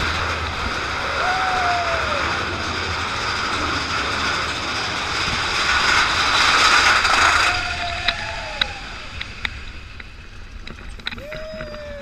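Mine-train roller coaster running along its track, with a loud, even rushing noise of the ride that drops away about seven and a half seconds in. After that come scattered sharp clicks, and a few short wavering tones rise and fall over the noise.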